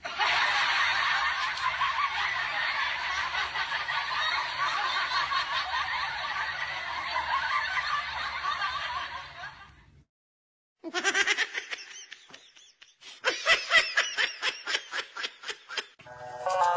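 A group of people laughing hard together for about ten seconds, then, after a short break, rapid pulsed bursts of laughter. Music starts near the end.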